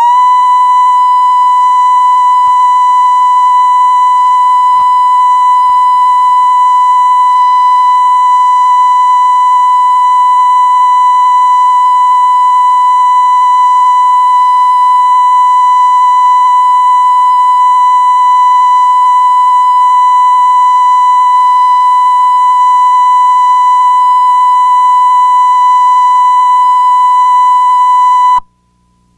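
Videotape line-up tone, the 1 kHz reference tone recorded with colour bars: a single loud, steady, high-pitched beep that cuts off abruptly near the end.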